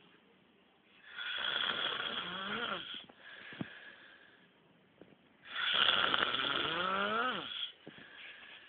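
A man snoring: two long, loud snores about four seconds apart, each rising in pitch toward its end, with softer breaths between.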